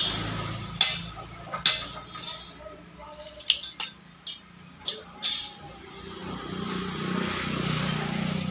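Sharp metallic clanks and clinks of metal striking metal, about six at irregular intervals, each ringing briefly, over a low steady hum.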